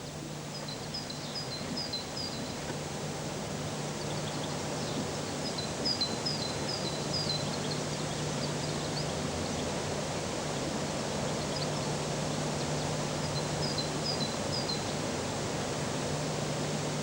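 Outdoor ambience with a small bird chirping in three short runs of quick, falling notes, over a steady hiss and a low hum.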